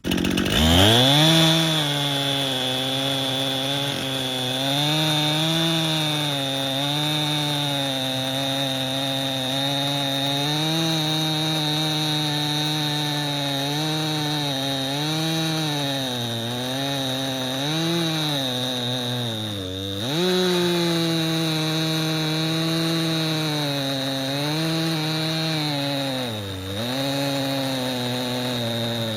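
Stihl MS261 C two-stroke chainsaw on a chainsaw mill, throttling up to full speed right at the start and ripping lengthwise through a cherry log with a ripping chain. The engine pitch wavers under load and dips briefly twice, about two-thirds through and again near the end.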